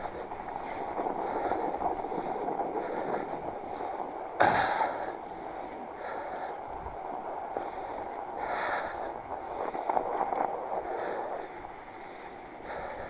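Fat bike's wide tyres rolling through snow, with the rider breathing hard in a regular rhythm. A sharp knock about four and a half seconds in.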